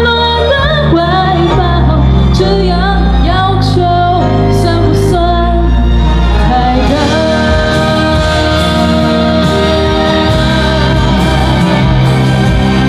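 A young woman sings live into a handheld microphone over a pop-rock backing track, with wordless vocal runs that slide up and down. From about seven seconds in she holds one long note.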